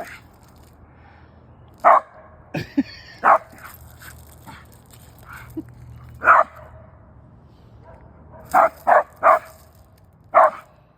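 A dog barking in single sharp barks at uneven intervals, about seven in all, with three in quick succession past the middle.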